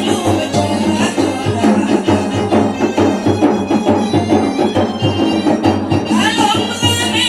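Traditional Malay gendang music: steady hand-drum beats under a sustained melody, with a voice singing from about six seconds in.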